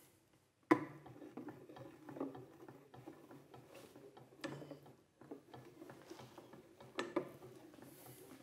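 Long white spoon stirring in a stainless-steel pot on the stove, scraping and clicking against the metal with a few knocks against the pot. A sharp knock about a second in is the loudest sound.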